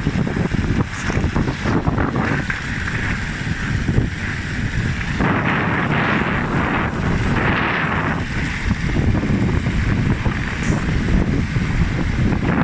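Strong wind buffeting the microphone: a dense, steady low rumble, with a louder hissing stretch about midway through.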